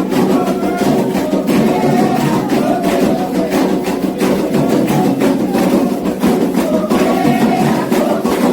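Candomblé xiré music: atabaque hand drums and bright struck percussion keep up a fast, steady rhythm under chanted singing.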